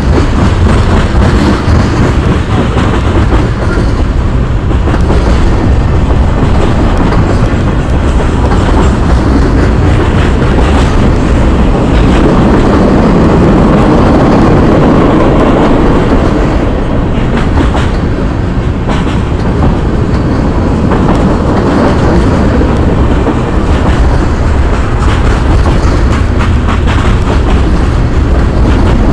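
Freight train cars rolling past close by: a steady heavy rumble of steel wheels on rail with scattered wheel clatter, swelling louder about halfway through.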